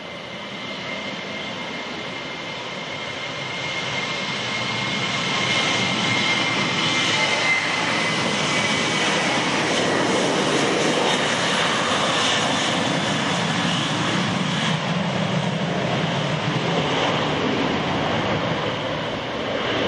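Boeing 737-800's CFM56-7B turbofan engines at takeoff thrust during the takeoff roll. A high whine sits over a rising roar that builds over the first few seconds and then stays loud as the jet passes. The whine fades, and the sound dips briefly and swells again near the end.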